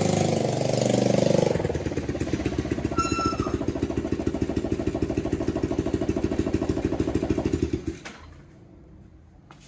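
Motorbike engine of a homemade three-wheeler running with no muffler fitted, its exhaust giving a loud, rapid pulsing. It revs up briefly at the start, then runs steadily and cuts off about eight seconds in.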